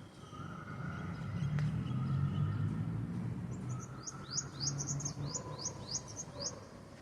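A bird chirping a quick run of about a dozen short, high, sweeping notes, over a low rumble of distant city traffic.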